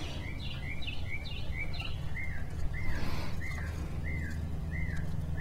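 A bird calling a steady series of short, arched chirps, about two a second, over a low steady hum.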